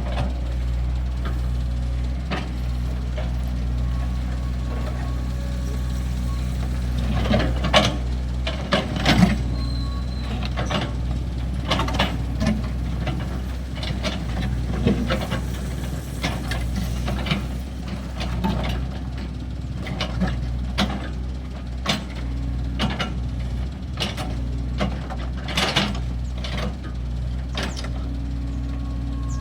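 Kobelco excavator's diesel engine running steadily while it works, with frequent irregular knocks and clanks, the loudest cluster about seven to nine seconds in.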